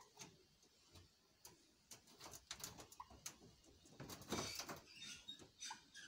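A caged parakeet scrabbling about on the wire mesh, its claws and beak making irregular clicks and scratchy taps that grow busier in the second half, with a few short, soft chirps.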